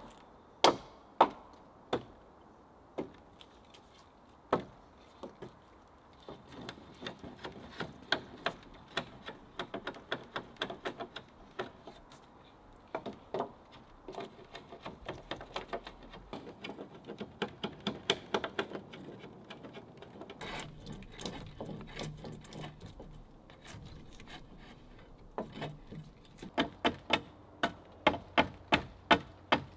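Sharp wooden knocks and taps on the log poles of a wood-frame shelter roof as they are worked and fitted. Single knocks at first, then clusters of quick taps, and near the end a steady run of strikes about two or three a second.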